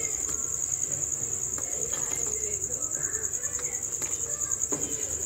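Crickets chirring, a steady high-pitched trill that pulses rapidly, with a couple of faint knocks from a ladle stirring rice and milk in a pot.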